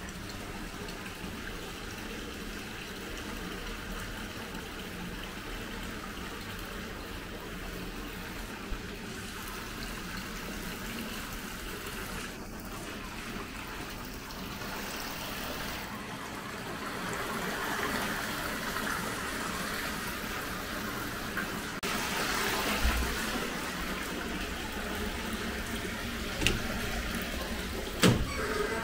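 Steady rushing, water-like background noise, louder in the second half. Near the end come a couple of sharp clicks and a knock as the entrance door's handle is worked and the door opens.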